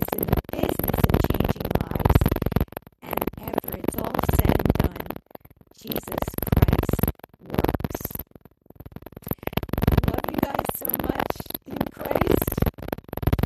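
Synthesizer music playing in phrases broken by short pauses.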